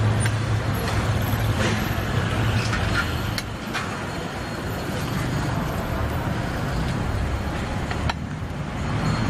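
Steady outdoor street noise with a low rumble of passing traffic, broken by a few sharp clinks.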